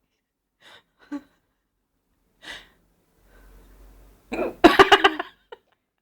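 A person hiccupping: a few short, faint hiccups, then a louder burst of quick stuttering pulses about four and a half seconds in.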